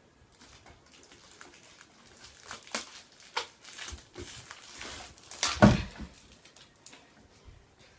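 Plastic packaging crinkling and rustling as it is handled and pulled open, with a sharp knock on the table about five and a half seconds in.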